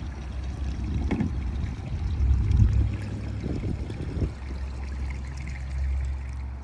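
Water sloshing and splashing around a small boat, with a few louder splashes, over a steady low rumble.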